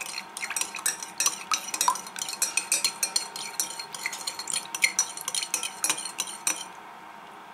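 A teaspoon stirring salt water in a glass bowl, clinking and scraping rapidly against the glass as the salt dissolves. The clinking stops about a second before the end.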